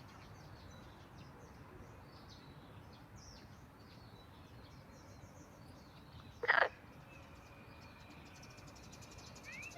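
Faint birds chirping over a soft background hiss, with one short, loud sound about six and a half seconds in.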